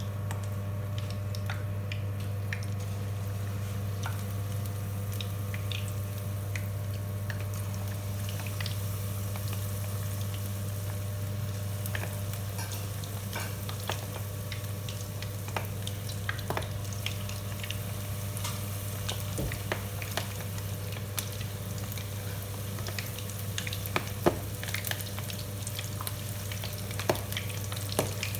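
Battered chicken feet frying in oil: a steady sizzle with scattered sharp pops, a few louder ones near the end, over a constant low hum.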